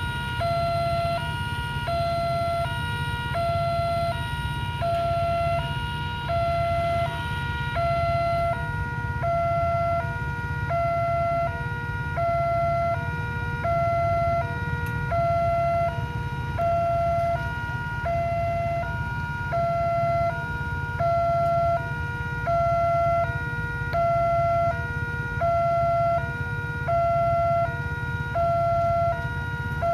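Electronic railway level-crossing warning alarm sounding a two-tone hi-lo pattern, the tones switching about every three-quarters of a second. It is the signal that a train is coming and the crossing is closed. Underneath is a steady low rumble of queued vehicles idling.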